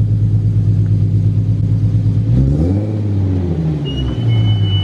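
Nissan 350Z's V6 engine running soon after a cold start, rising in pitch once in the middle and falling back to a steady note. Near the end comes a short, high brake squeal, from brakes that squeal while they are still cold.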